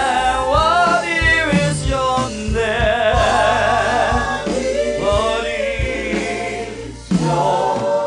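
Live gospel praise-and-worship music: singing voices over instrumental accompaniment with a steady low beat, one voice holding a long note with wide vibrato about three seconds in.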